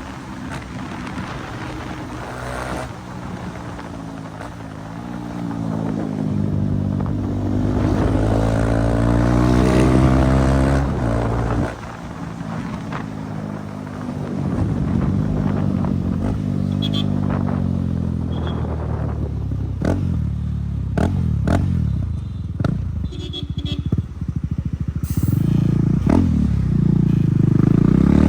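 KTM Duke 390's single-cylinder engine running without its exhaust, revs rising and falling repeatedly. A string of sharp pops comes in the second half.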